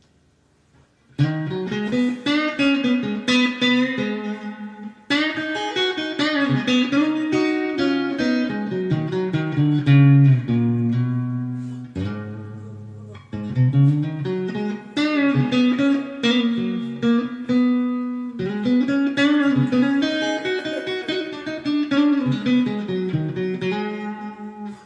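Electric guitar played solo: a Squier '70s Vintage Modified Stratocaster with Fender Custom Shop Texas Special pickups, through a Fender Mustang III v2 amp's '57 Deluxe model with spring reverb. It plays picked phrases with bent notes, starting about a second in, with a short break midway.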